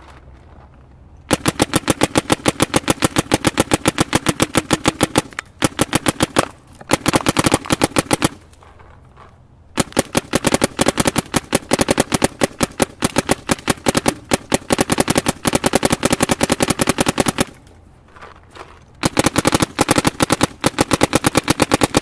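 Planet Eclipse Etha 2 paintball marker firing on compressed air, shot after shot in rapid semi-automatic strings. There are four runs of rapid shots with short breaks of about a second between them.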